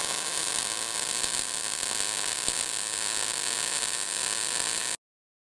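Vulcan OmniPro 220 MIG welder running .030 wire on 120 volts: the arc makes a steady crackling hiss as a bead is laid along a lap joint on 3/16-inch steel. It cuts off suddenly about five seconds in.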